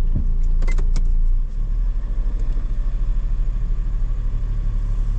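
Toyota Duet's small petrol engine heard from inside the cabin, with a few light clicks just under a second in. About a second and a half in it drops back and settles into a steady, evenly pulsing idle.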